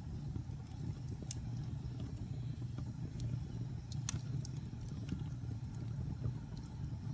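Wood fire burning in a fireplace: a steady low rumble with scattered sharp crackles and pops, the loudest about four seconds in.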